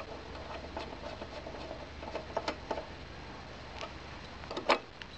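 Light metallic clicks and ticks of a spark plug being fitted and screwed back into a lawn mower engine's cylinder head by hand, with one sharper click near the end.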